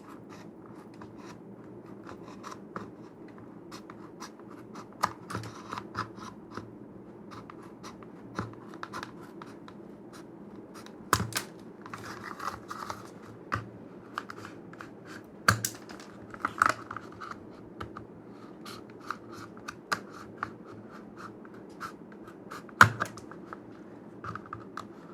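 Irregular sharp clicks, taps and short scratchy scrapes of hands working a stiff kydex plastic holster, over a steady low background hum.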